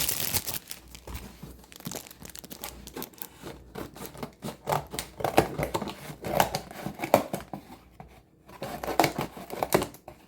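Packaging being handled and opened: irregular crinkling and tearing of wrapping, with a brief pause about eight seconds in.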